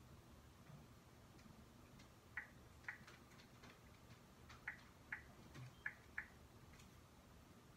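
Six short, sharp clicks in three pairs, starting a couple of seconds in, as a refrigerator's door touchscreen is tapped, over a quiet room.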